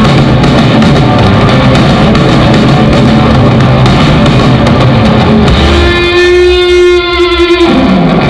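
Rock band playing live on electric guitars and drum kit; the full band drops out about six seconds in, leaving one held guitar note that slides down in pitch at the end of the song.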